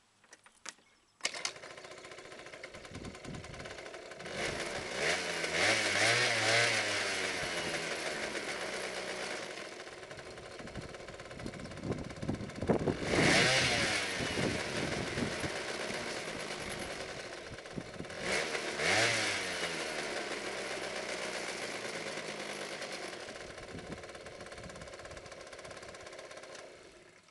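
2003 Vespa ET2's 50cc two-stroke engine with an aftermarket exhaust, starting about a second in and idling. It is revved up and back down three times, then stops near the end.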